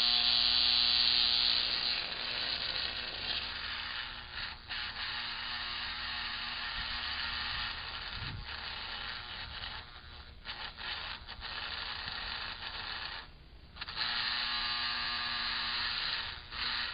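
Handheld electric vibratory tool buzzing steadily as its tip works inside an aircraft spark plug, shaking loose hard lead deposits. The buzz breaks off briefly a few times, with a longer pause about three-quarters of the way through.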